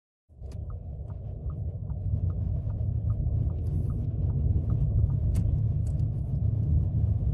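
Car engine and tyre noise heard from inside the cabin, a steady low rumble that cuts in abruptly just after the start. Over it, a regular light ticking about two and a half times a second, like a turn-signal indicator.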